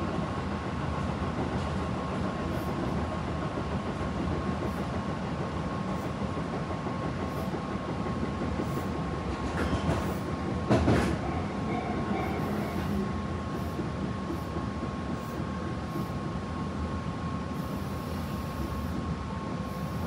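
Tobu 9050 series commuter train heard from inside a quiet unpowered control trailer car while running: steady wheel and track noise with a thin, steady high tone. One brief, louder knock comes about eleven seconds in.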